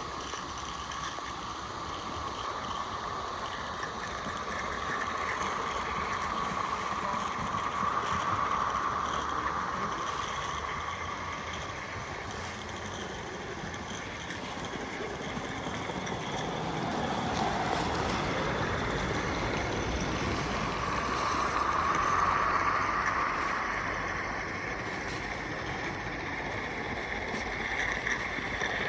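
Small Roundhouse 32mm-gauge live-steam saddle-tank locomotive running around the track, a steady steam hiss and exhaust that grows louder and fades twice as it comes close and moves away.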